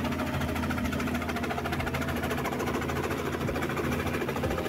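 Small helicopter running on the pad with its engine and main rotor turning: a steady low drone with a fast, even chop from the rotor blades.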